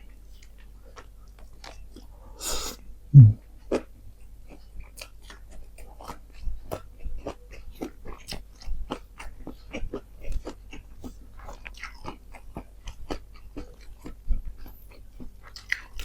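A person chewing and biting into nasi padang with fried chicken: irregular crunchy bites and wet chewing clicks, with one louder thump about three seconds in.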